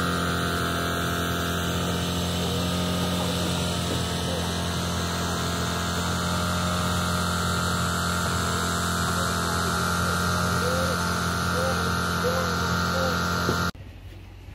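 An engine running at a steady, unchanging speed: a constant drone and hum that cuts off suddenly near the end.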